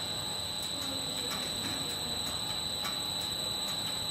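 Rotary die head plastic net extruder running: a steady high-pitched whine with a fainter higher overtone over an even mechanical hum, with light ticking about three times a second.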